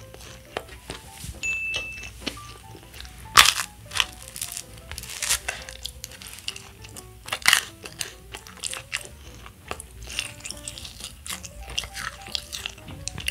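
Close-miked eating of soft watermelon bread: chewing and wet mouth sounds with irregular sharp clicks and crackles, over light background music.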